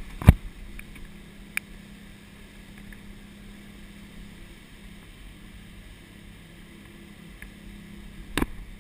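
Detroit 6-71 two-stroke diesel engine running steadily under way, with water rushing past the hull in broken surf. A loud sharp knock comes just after the start, a smaller one about a second and a half in, and another near the end.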